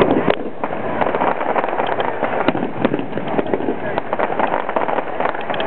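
Aerial fireworks crackling: a dense, continuous run of small pops and crackles with a few sharper reports among them, with voices mixed in.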